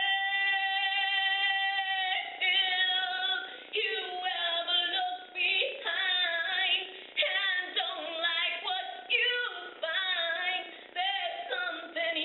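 A woman singing solo and unaccompanied: she holds one long, steady note for about two seconds, then carries on in shorter phrases that bend and slide in pitch.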